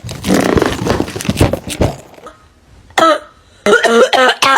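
A woman coughing: a harsh, rasping coughing fit for about two seconds, then after a short pause a run of short, voiced coughs and throat-clearing.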